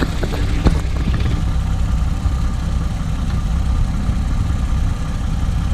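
2006 Toyota Avalon's 3.5-litre V6 idling steadily with the hood open, with a couple of light clicks in the first second.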